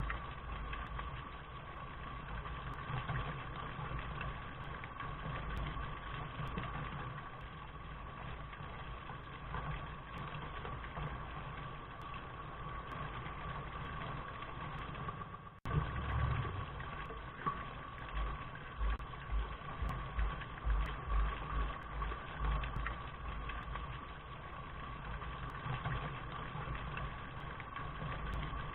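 Steady rain noise with a low, uneven rumble underneath, muffled. It breaks off for an instant a little past halfway, then carries on.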